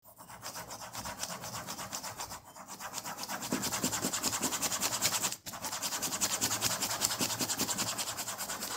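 Pen scratching across paper in fast, even strokes, with a short break about five seconds in.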